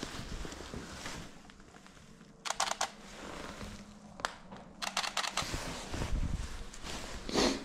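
Close handling noise from clothing and camera gear: fabric rustling against the microphone with quick clusters of sharp clicks, and a louder rustle near the end.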